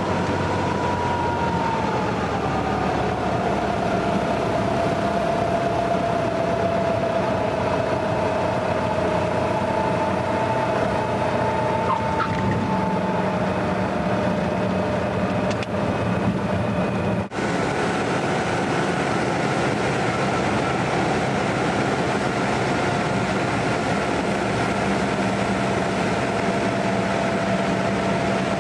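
Cessna 172N Skyhawk's four-cylinder Lycoming engine and propeller droning steadily, heard from inside the cabin, its pitch dropping a little about two seconds in. The sound cuts out for an instant about seventeen seconds in.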